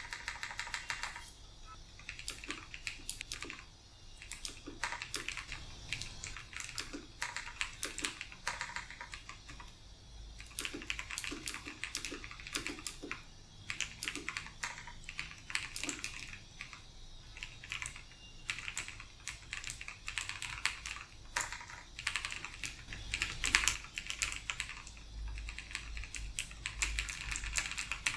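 Typing on a mechanical keyboard with clicky Long Hua Blue switches (Cherry MX Blue clones) lubed with coconut oil: rapid, crisp key clicks in runs, with brief pauses.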